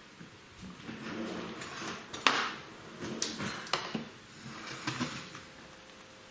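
Kitchen handling clatter: a serving spoon set down on the worktop and a frying pan shifted across a glass induction hob, a few knocks and scrapes, the loudest a little over two seconds in.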